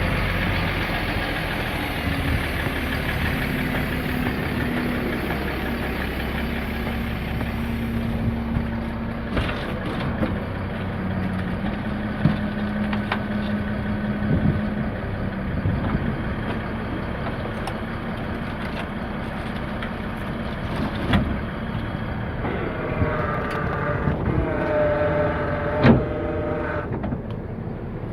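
1988 International garbage truck's engine running at a steady idle, with scattered knocks and clanks. A wavering whine rises over the engine for a few seconds near the end.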